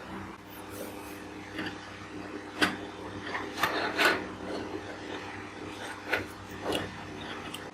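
Rasping and scraping of hard parts being handled, with several sharp clicks spread through it, over a faint steady hum.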